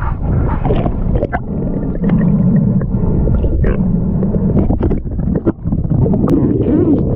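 Muffled water sloshing and gurgling picked up by a GoPro in the sea, with scattered small clicks and knocks.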